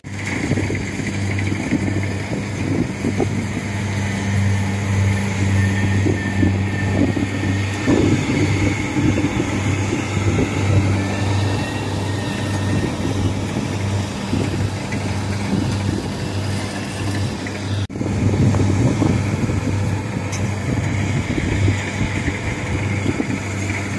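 Rice combine harvester running steadily as it cuts rice, a steady low engine drone with machine noise over it; the sound dips briefly about 18 seconds in.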